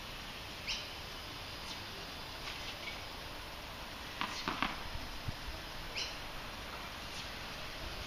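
A tennis ball bounced a few times on a hard court before a serve, with a bird chirping briefly twice. Faint overall.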